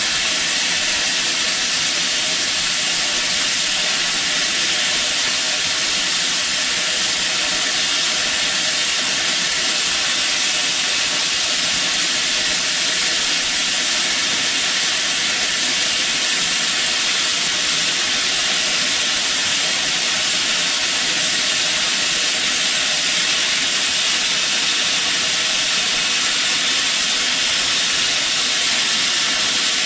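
GWR Modified Hall 4-6-0 No. 6960 Raveningham Hall standing in steam, hissing steadily.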